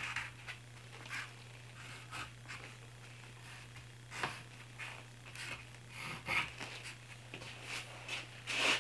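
Pencil scratching short marking lines across pine boards: a series of brief scratchy strokes spaced irregularly, the loudest near the end, over a steady low hum.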